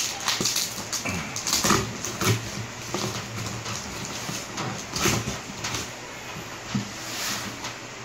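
Cardboard box and paper packaging being handled and pulled open: irregular rustles and scrapes, with several louder crinkles through the first half.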